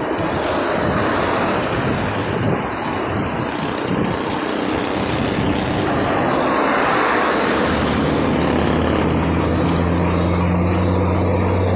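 Heavy road traffic of trucks and trailers heard at close range, a steady rushing noise. About two-thirds of the way in, a truck engine's low steady hum comes in and holds.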